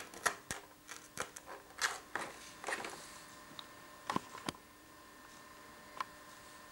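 A scalpel blade cutting and scraping at depron foam: a run of short, faint scratchy clicks for about three seconds. A few light knocks follow, about four seconds in, and one more click near the end.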